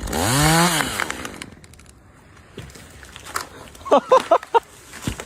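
Chainsaw revving up and dropping back in the first second, then fading away. A few short, high-pitched blips come about four seconds in.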